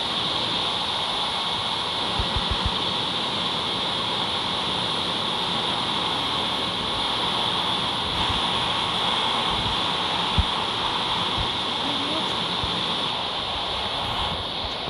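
Steady rushing noise with a constant high hiss, unbroken, with a few faint low thumps.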